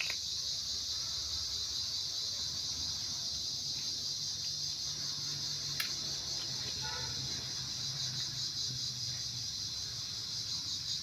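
A steady, high-pitched insect chorus, with kittens mewing faintly now and then and a single sharp click about six seconds in.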